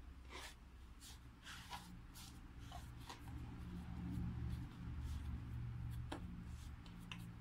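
Hands patting and pressing soft dough on a floured plastic cutting board: scattered light taps and rubs, mostly in the first three seconds and again near the end, over a low steady hum.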